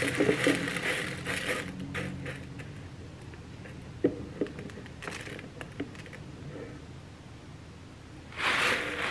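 Dry rice grains pouring from a cardboard box into a clear plastic container, a soft pattering hiss that is loudest near the end, with two light ticks about four seconds in.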